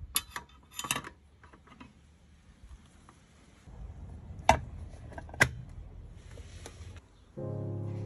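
Light metal clicks and rattles as the PT-1 kerosene stove's wire pot supports are folded down into its steel case, then two sharp metallic clicks about a second apart as the steel lid is shut and latched. Music starts just before the end.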